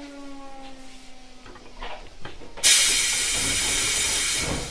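Odakyu 1000 series train's Mitsubishi GTO inverter whine falling in pitch under braking and fading out as the train comes to a stop, followed by a few clunks. About two and a half seconds in, a loud burst of compressed-air hiss runs for about two seconds, typical of brake air being released at the stop.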